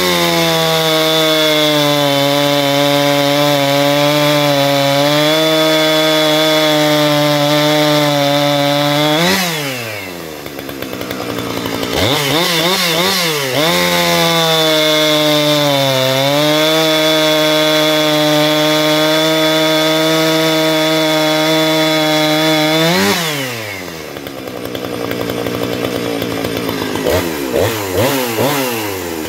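Two-stroke gasoline chainsaw cutting through a log at full throttle in two long cuts. Between the cuts and at the end the engine drops back toward idle, with a few quick blips of the throttle near the end.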